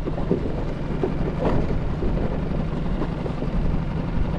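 Honda 5HP single-cylinder four-stroke outboard running steadily under way, with wind rushing over the microphone.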